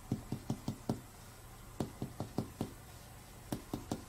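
Clinical finger percussion of the chest wall, done to map the liver's borders and measure the liver span. The taps come in three quick groups of four or five, about five taps a second, with short pauses between the groups.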